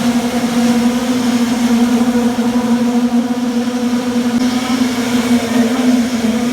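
Concrete-pouring machinery running steadily, a constant unchanging hum.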